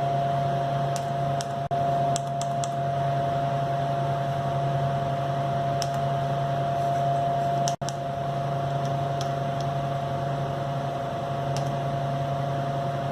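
Steady electrical hum from the fire pump controller's surroundings, with a few faint clicks of keypad buttons being pressed on the controller. The hum cuts out for an instant twice, about two and eight seconds in.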